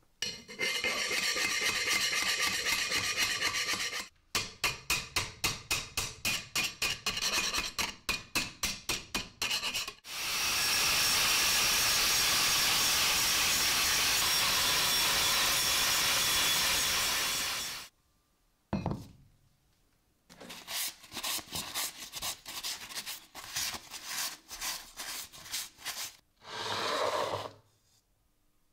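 A hand file scraping across a welded steel bracket in quick strokes that speed up. In the middle comes about eight seconds of an angle grinder running steadily on the steel, and then more file strokes.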